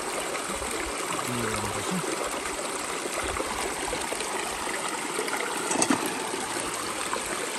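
Small rocky stream running and trickling steadily. A brief knock comes about six seconds in.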